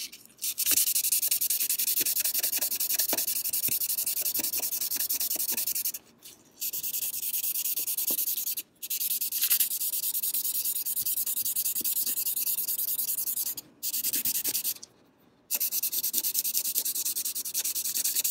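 Fine 400-grit sandpaper scrubbed by hand in quick back-and-forth strokes along the steel blade of a Swedish frameback straight razor, a steady scratchy rasp. It stops briefly about six seconds in, near nine seconds, and twice around fourteen to fifteen seconds.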